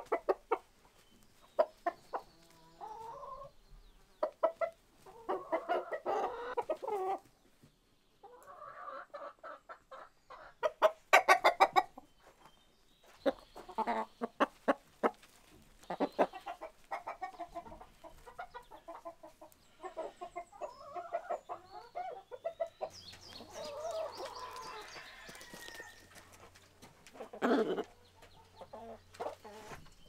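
A flock of chickens clucking, with calls coming in bursts that come and go and a loud run of quick clucks about eleven seconds in.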